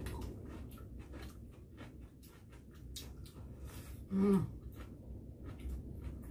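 Two people eating sticky rice with chopsticks: soft chewing and wet mouth clicks with small taps throughout, and a brief hummed "mm" a little past four seconds in.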